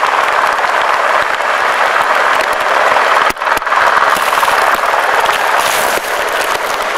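Steady, loud rushing of water, an even hiss with little low rumble, that briefly drops out near the middle.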